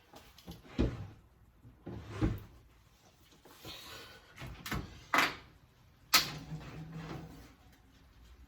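Oven door and a metal baking pan being handled as the pan of fish comes out of the oven: a series of separate clunks and knocks with a short scrape in between. The loudest is a sharp bang about six seconds in.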